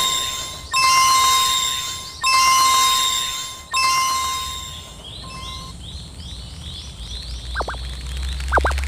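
A cartoon level crossing's warning chime struck about every second and a half, each stroke ringing out and fading. About five seconds in it gives way to a run of short rising chirps and two quick whistle-like swoops.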